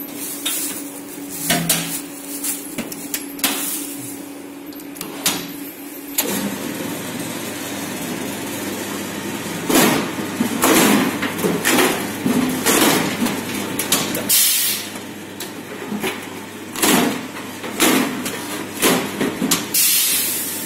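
Electric rotary-blade meat bone cutter running with a steady motor hum and metal clanks from the feed carriage. From about six seconds in, the blade is under load, and in the second half it chops through meat and bone with sharp cutting strokes about once a second.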